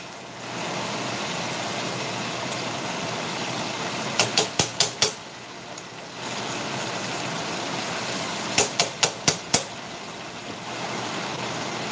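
Ribs frying in hot oil in a stainless steel pot: a steady sizzle that drops away briefly twice. Metal tongs click in two quick runs of about five clicks each, about four seconds in and again near nine seconds.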